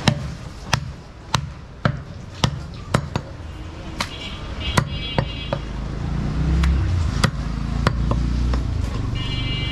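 Meat cleaver chopping through a goat's chest and ribs on a wooden log chopping block: about a dozen sharp chops, roughly two a second, coming more sparsely after about five seconds in. A low rumble rises beneath them from about six seconds in.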